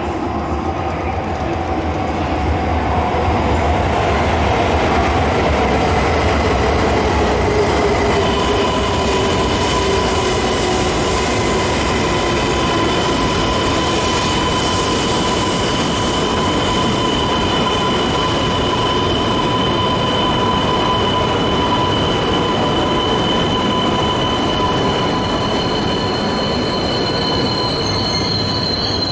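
Coupled E3 and E2 series Shinkansen trains pulling into the platform and braking. A whine falls in pitch as the train slows over the first ten seconds or so, and from about eight seconds in a steady high tone holds over the rumble and hiss of the train.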